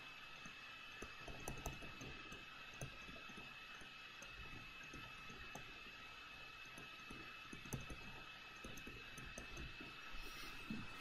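Faint, irregular clicks and taps of a stylus writing on a tablet screen, over a steady hiss with a thin high-pitched whine.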